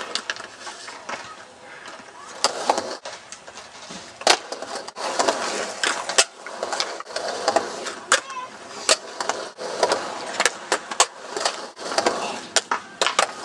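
Skateboard rolling on a concrete ramp and ground, with many sharp clacks of the board and wheels hitting the concrete scattered throughout. Faint voices in the background.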